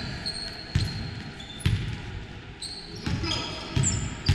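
Basketball bouncing on a gym floor, a knock roughly every second as it is dribbled, with short high sneaker squeaks on the court.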